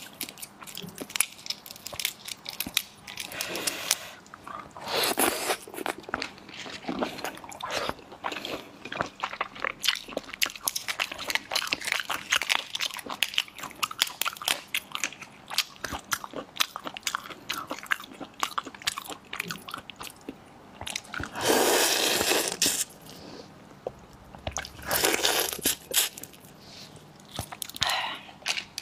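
Shells of large red prawns cracking and crackling as they are peeled apart by hand close to a clip-on microphone, with chewing. Dense small clicks run throughout, with a few longer, louder stretches, the loudest about three-quarters of the way through.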